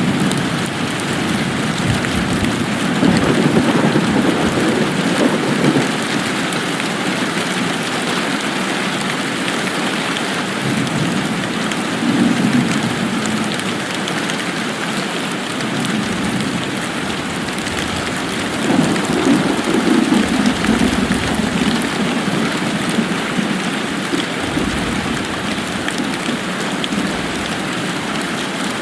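Steady rain falling, an even continuous hiss, with low rumbles of distant thunder swelling up and fading several times, the biggest a few seconds in and again past the middle.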